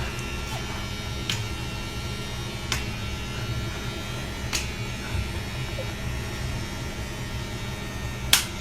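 A steady low electrical hum with a few sharp clicks spread through it.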